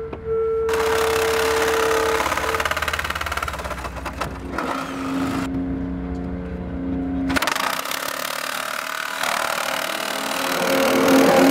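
Reciprocating saw (Sawzall) cutting through refrigerator sheet metal, its motor buzzing with rapid blade strokes. It cuts in two spells, stopping for about two seconds near the middle.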